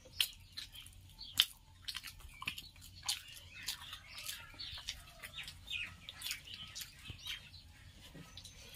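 Small birds chirping again and again in short quick notes, mixed with the wet smacks and clicks of someone chewing a mouthful of food close by.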